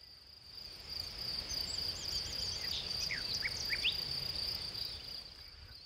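Steady high-pitched insect drone in the forest, with a songbird singing a quick run of looping high notes about two seconds in, then a few short whistled slurs; a low rumble sits underneath.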